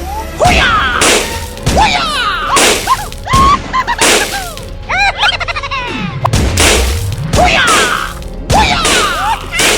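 Baby monkey squealing over and over in short, high-pitched cries that rise and fall, mixed with a string of sharp splashing or smacking hits.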